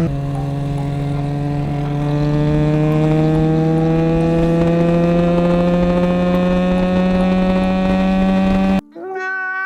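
SRK250RR motorcycle engine under way, its pitch dropping with an upshift at the start, then climbing slowly and steadily as the bike accelerates in gear. The engine sound cuts off abruptly near the end and a different, cleaner pitched sound takes over.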